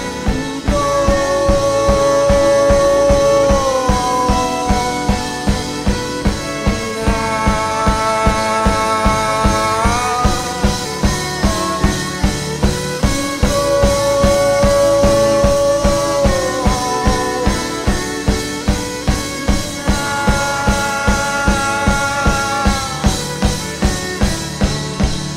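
Live rock band playing an instrumental passage: a steady drum-kit beat under sustained chords that slide from one chord to the next every few seconds. The music cuts off suddenly at the very end.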